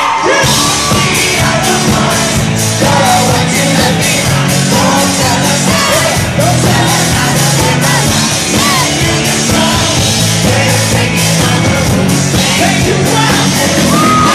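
Live pop band playing loudly through the venue's PA, with a steady drum beat, bass and sung and shouted vocals.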